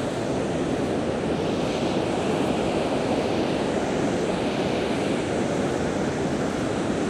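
Ocean surf washing steadily onto the beach, a small, calm surf, with some wind on the microphone.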